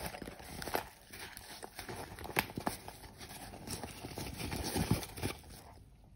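Fabric zippered pouch being handled and tipped, its cloth rustling, with scattered small clicks and knocks from the items inside; the handling noise dies away near the end.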